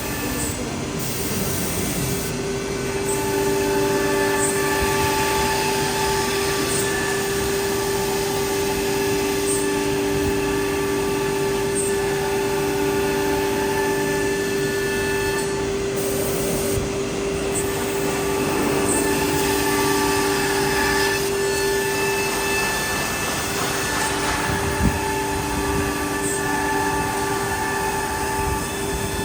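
CNC nesting router's spindle running with a steady high whine, with further tones starting and stopping over it as the machine works, and a single short knock near the end.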